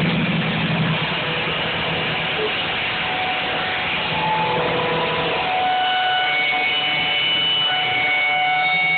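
Live hard rock band playing loud distorted electric guitars and bass, heard as a dense wash of noise. About halfway through, sustained guitar notes ring out over it.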